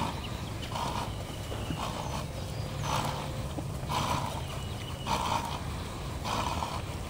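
A horse under saddle moving at a slow, even gait. It gives a short blowing puff of breath about once a second, in a steady rhythm.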